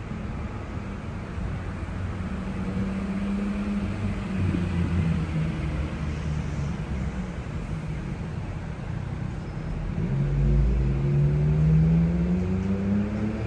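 Road traffic below: a vehicle engine is heard, and about ten seconds in one accelerates past with its pitch rising, over a steady background hiss.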